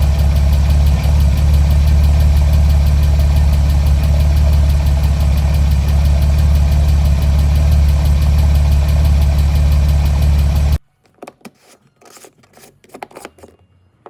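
Porsche Boxster 981S's 3.4-litre flat-six idling steadily, with the tappet noise from the hydraulic valve lifters that the owner has noticed. The engine sound cuts off suddenly about eleven seconds in, followed by a few faint clicks and knocks.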